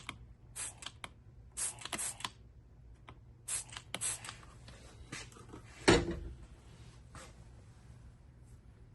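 Trigger spray bottle giving several short spritzes of a Windex-and-vinegar mix onto a plugged tire to check for leak bubbles, followed about six seconds in by a single knock, the loudest sound.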